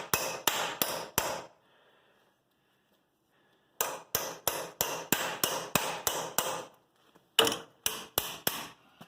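Small hammer striking a cold chisel, driving it like a wedge into a seam to split axle parts apart: a quick run of sharp metal blows, a pause of about two seconds, a longer run of about ten blows, then four more near the end.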